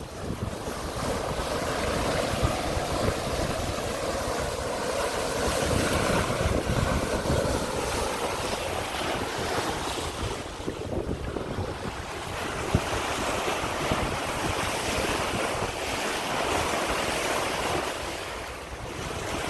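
Wind buffeting the microphone over the steady rush of sea water and waves.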